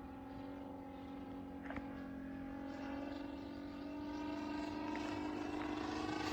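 Saito FG-60R3 three-cylinder radial petrol engine of a large radio-controlled Westland Lysander model in flight: a steady drone that grows louder and rises slightly in pitch.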